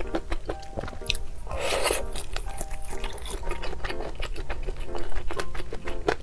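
Background music of short held notes over a quick clicking beat, with a brief hiss about a second and a half in.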